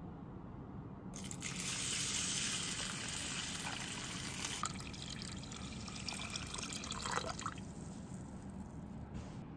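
A stream of water poured into a stainless-steel bowl of dry black glutinous rice to soak it. It starts suddenly about a second in and stops about six seconds later.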